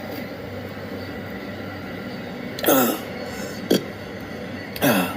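A man's hiccups from intractable, chronic hiccups, three in quick succession: two loud ones with a short falling voiced tone and a shorter, sharper one between them. They sound over the steady hum of a car interior.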